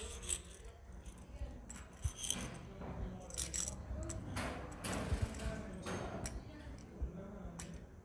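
Plastic jingle-ball toys rattling and jingling in short, irregular flurries with small clicks as Alexandrine parakeets bite and tug at them.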